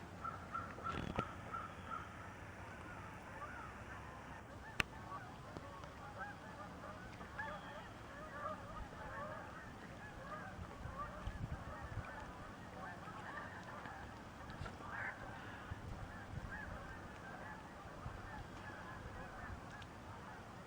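A large flock of migrating geese honking continuously, many calls overlapping at once. A few sharp clicks near the start and one about five seconds in.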